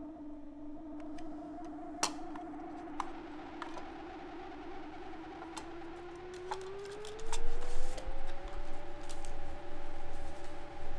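A sustained low drone holds steady, then slides up in pitch over a few seconds around the middle. Over it come scattered clicks and taps of small objects handled on a desk, and from about seven seconds in, louder rustling and knocks.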